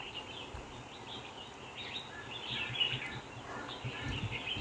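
Small birds chirping and twittering faintly in the surrounding trees over a soft outdoor background hiss, with a couple of soft low bumps.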